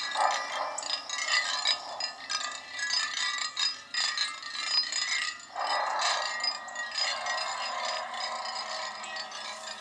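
Chimes ringing, with many small overlapping metallic tones struck again and again.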